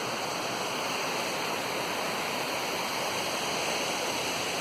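Steady rushing of a waterfall, an even unbroken wash of falling water.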